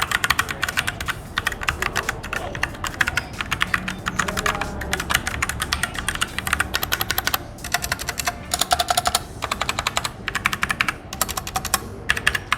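Typing on an Ajazz K870T wireless TKL mechanical keyboard with Huano brown switches: quick runs of key clicks broken by a few brief pauses.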